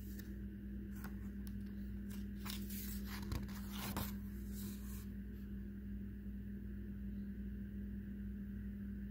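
A glossy picture-book page being turned by hand, rustling and scraping in a few quick strokes over the first five seconds, then stillness over a steady low hum.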